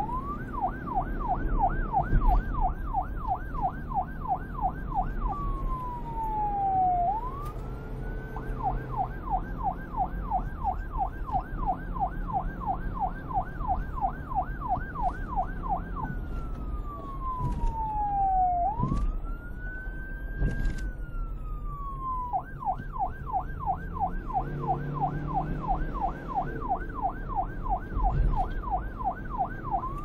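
Police car siren in fast yelp mode, rising and falling about four times a second. It breaks twice into slow wailing falls and rises in pitch, then goes back to the fast yelp, over a low background rumble.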